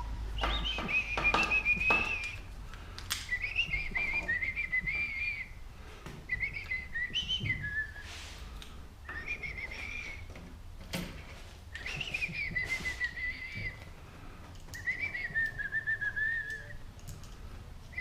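A person whistling a tune in several short phrases, one wavering high note at a time, with a few light clicks and knocks in the pauses.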